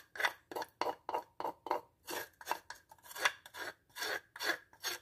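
A metal spoon scraping around the inside of a wooden mortar in short, quick strokes, about three a second, working freshly mashed garlic loose from the wood.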